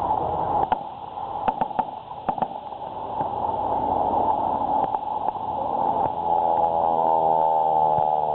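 Engines of replica WWI biplanes flying low overhead. The engine note grows louder and rises slightly in pitch over the last couple of seconds as one passes close. A few sharp cracks come in the first seconds.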